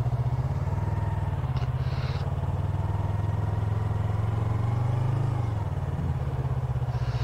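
Yamaha R3's 321cc parallel-twin engine running steadily at low revs as the motorcycle pulls away from a stop and makes a slow, clutch-controlled U-turn. The revs rise a little and then ease off about five seconds in.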